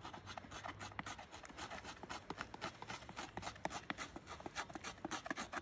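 Knife blade scraping a piece of birch bark in quick, repeated short strokes, shaving it into fine tinder for fire-lighting.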